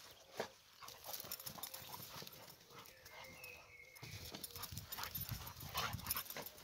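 An American Staffordshire terrier and a border collie puppy play-fighting on grass: scuffling with irregular thumps of paws and bodies, heavier and louder in the second half.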